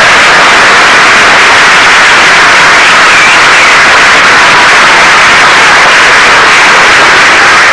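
Loud, steady static-like hiss from an old home-video recording, with no clear voices or music standing out.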